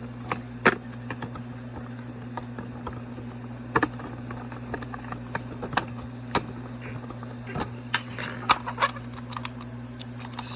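Small plastic gears and gearbox parts of a Gemmy Snoring Santa clicking and tapping as a replacement 8-tooth gear is pressed onto its shaft: scattered sharp clicks, a few louder than the rest, over a steady low hum.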